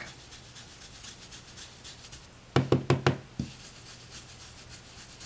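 Round blending brush dabbing and rubbing ink through a stencil onto paper, a faint soft brushing, with a quick run of about five sharp knocks about halfway through.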